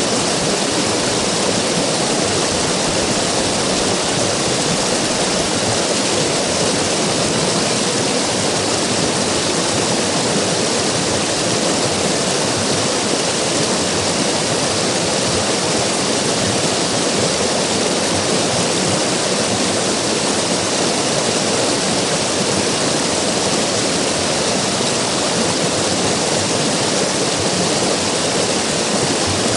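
River water rushing and splashing in a steady, unbroken wash of noise.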